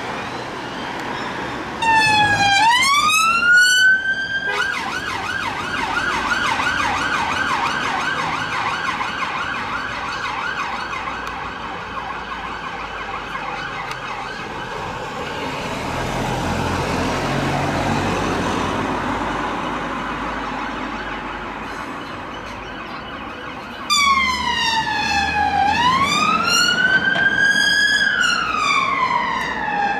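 Electronic emergency-vehicle sirens in traffic: a rising wail about two seconds in that breaks off, then a fast yelp that slowly fades away. Near the end a slow wail starts again, rising and falling in long sweeps.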